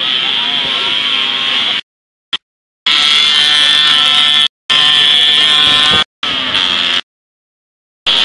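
Small two-stroke moped engine running as a rider goes round a dirt motocross track, a steady, high-pitched engine note. The sound cuts out to complete silence four times, the longest for about a second.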